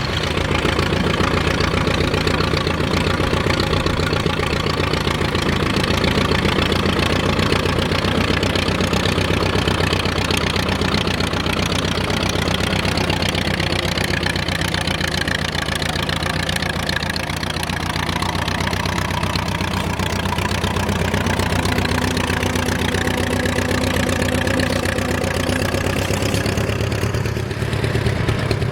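Vintage tractor engine running steadily, with a rapid even firing beat.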